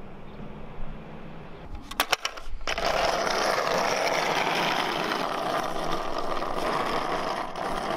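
Skateboard on cast bronze trucks and bronze wheels: a few sharp knocks about two seconds in, then the metal wheels rolling on asphalt with a loud, steady, gritty noise.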